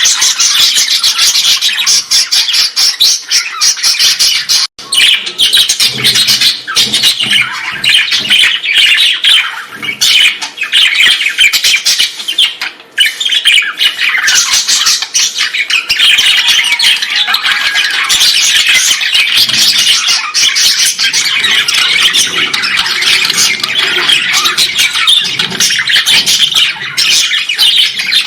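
A colony of many birds calling all together: a dense, continuous chatter of overlapping squawks and chirps that stays loud throughout.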